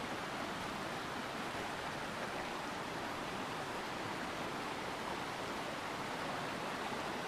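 Steady rushing of falling water from a waterfall, an even noise with no change in level.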